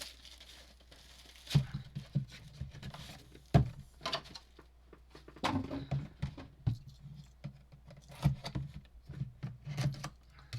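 Trading-card boxes and packs being handled and opened on a tabletop: irregular taps, light knocks and rustling, with a few scattered sharper clicks.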